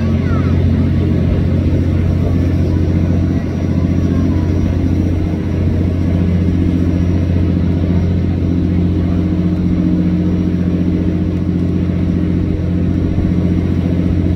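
Tour boat's engine running steadily under way: a low, even drone.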